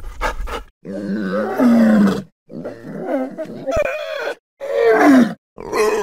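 Dinosaur vocal sound effects: a string of about four separate pitched calls, each cut off by a short silence. The one about a second in is long and wavering, and the one near the end slides down in pitch.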